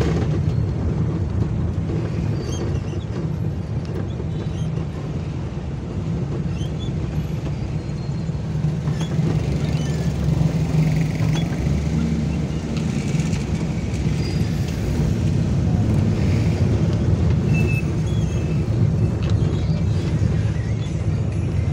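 Steady low rumble of a car's engine and tyres, heard from inside the cabin while driving slowly through street traffic.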